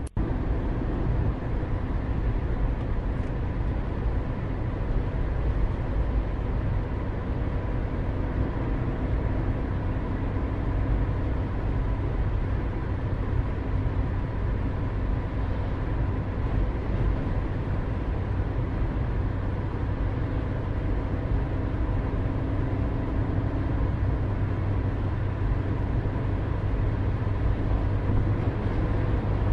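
Steady low background rumble with a few faint steady hums running under it. There are no distinct events.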